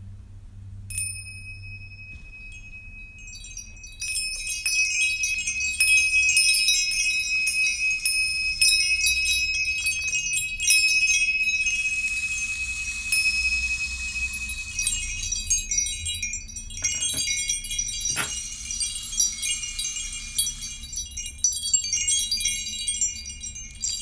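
Tingsha, a pair of small hand cymbals joined by a cord, struck together. One clear, long-ringing strike comes about a second in, and from about four seconds a dense run of high, overlapping tinkling tones follows.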